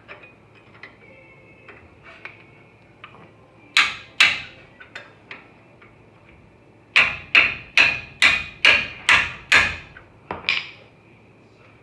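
Hammer blows on metal: two strikes about four seconds in, then a run of about seven strikes at roughly two to three a second and one lighter strike near the end.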